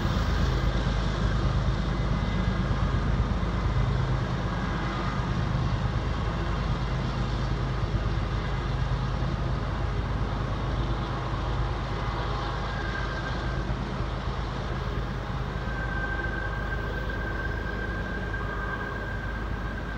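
CSX double-stack freight train rumbling steadily as its last cars roll away around a curve, slowly fading. A thin high squeal joins in during the second half.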